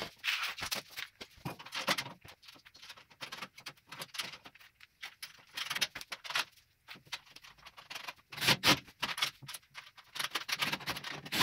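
Scattered clicks, knocks and rattles of metal hardware being handled while caster wheels are bolted onto a steel tool cart, coming in irregular clusters with short pauses between.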